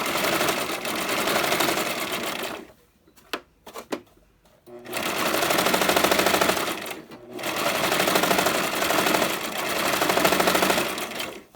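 Electric home sewing machine running at speed, zigzag-stitching hair wefts together in three runs with a fast, even rattle. It stops for about two seconds after the first run, with a couple of small clicks in the pause, and halts briefly again before the last run.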